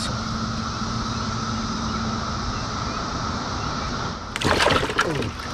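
Steady drone of a Brood X periodical cicada chorus; about four seconds in, a loud burst of splashing lasting about a second as a bluegill flaps and throws water.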